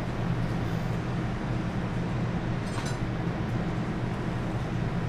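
Steady low machine hum, with one brief clink about three seconds in.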